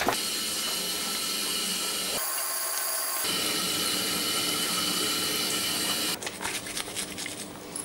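Electric toothbrush buzzing steadily, which cuts out about six seconds in and gives way to irregular scratchy scrubbing of the brush against foamy teeth.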